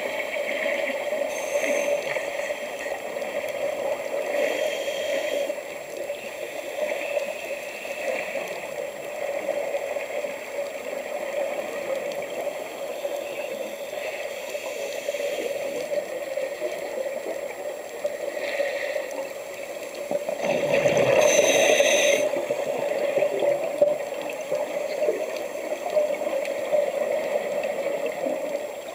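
Underwater ambience heard through a dive camera housing: a steady muffled hum, broken by a scuba diver's regulator breathing, with short hissing and bubbling exhalations every few seconds. The loudest bubbling burst comes about three quarters of the way in.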